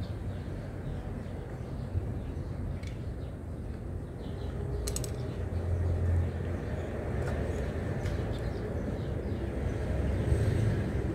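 Outdoor background with a steady low rumble that swells a couple of times, and a few light clicks of a spoon on a plate about five seconds in.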